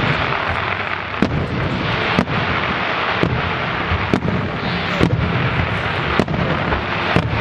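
Fireworks display with aerial shells firing and bursting in quick succession: a continuous dense rumble with a sharp bang about once a second.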